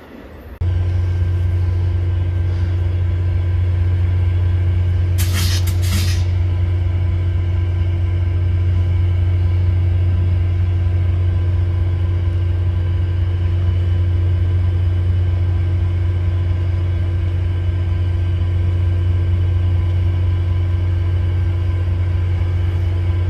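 VIA Rail F40PH diesel-electric locomotive standing with its engine running: a steady low drone with a constant whine above it. A short hiss breaks in about five seconds in.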